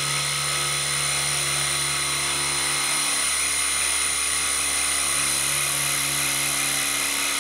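Milling machine spindle running at high speed while a small solid-carbide end mill cuts into a hardened steel hand file: a steady whine with a high-pitched tone over a lower hum. The cutter is biting into the hardened steel without trouble.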